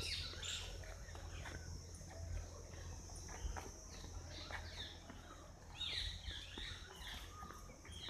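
Birds chirping in short, falling calls, with a bunch of them about six seconds in, over a steady high insect hum.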